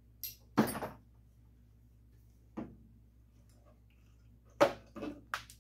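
A few sharp clinks and knocks of metal being handled at a workbench: locking pliers and short cut bolt studs set down on a wooden stand. The clinks are loudest about half a second in and near the end, over a faint steady hum.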